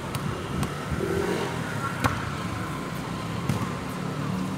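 A volleyball being struck during a rally, with one sharp slap about two seconds in and a few lighter taps, over a steady traffic hum and faint voices.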